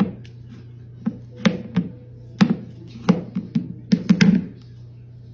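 A ceramic food bowl being rocked by a cat's paw on a hardwood floor, knocking and clattering against the boards in an uneven run of taps, with a quick cluster of knocks near the end.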